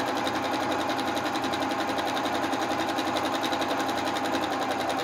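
Janome domestic sewing machine running steadily at a fast, even stitching rhythm during free-motion stitching, its needle going up and down while the fabric is moved by hand.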